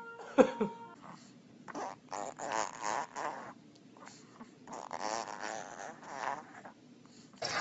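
A dog vocalising: a short, sharp, falling yelp about half a second in, then two stretches of wavering, grumbling whines.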